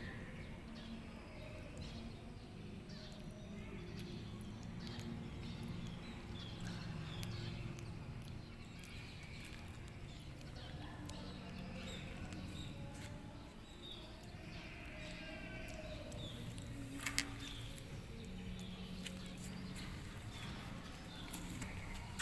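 Small birds chirping: short, high, falling chirps come again and again over a low steady background noise. One sharp click comes about 17 seconds in.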